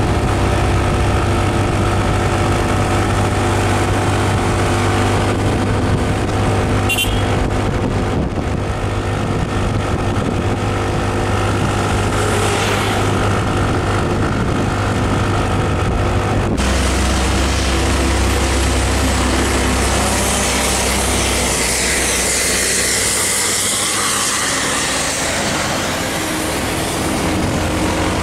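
Motorcycle engine running steadily while under way, with road and wind noise; the engine note changes about halfway through.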